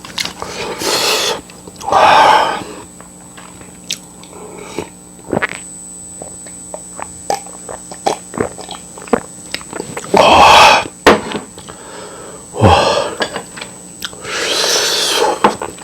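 A person eating spicy noodles close to the microphone: chewing with many small wet clicks, broken about five times by loud, noisy slurps.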